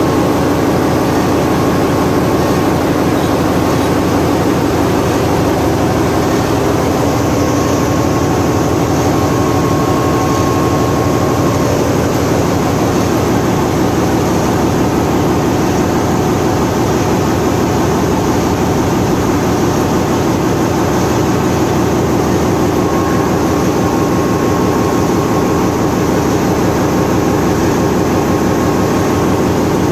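Loud, steady drone of running diesel machinery in a ship's engine room, with a fast, even pulsing throughout.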